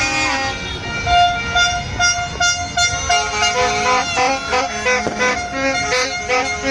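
Music: a quick melody of short, sustained pitched notes, with a few sharp cracks after the middle.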